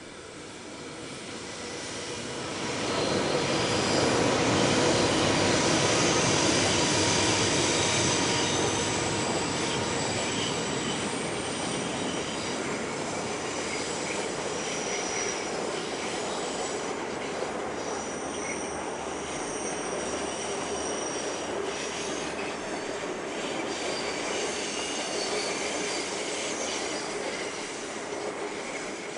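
Indian Pacific passenger train running through a curved cutting. The rumble of the train swells to its loudest about four seconds in, then carries on steadily as the carriages pass, with high-pitched steel wheel squeal on the curved track coming and going through the second half.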